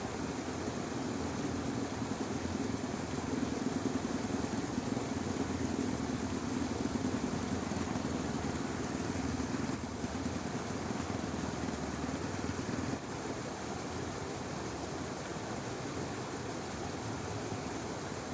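A low, steady engine hum over a constant noisy outdoor background, cutting off abruptly about 13 seconds in.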